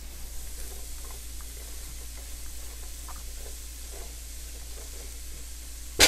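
Diced onion, celery and bell pepper sizzling gently in a non-stick frying pan while a plastic spoon stirs them, with faint scraping taps. A sharp knock comes right at the end.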